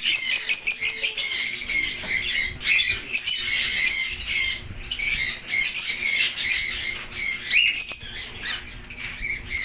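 Several lovebirds chattering and squawking without a break, a dense mass of short, high-pitched calls.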